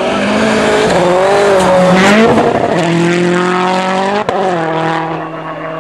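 Rally car engine revving hard on a snowy special stage, its pitch rising and falling with the throttle and gear changes. The sound briefly cuts out about four seconds in, then the engine carries on at a steadier pitch.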